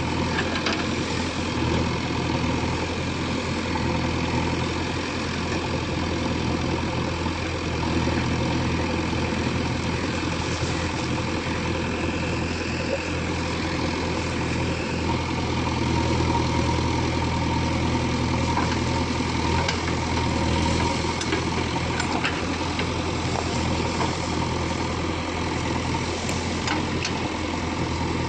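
Diesel engine of an earthmoving machine running steadily at a low, even speed, with a few faint clicks here and there.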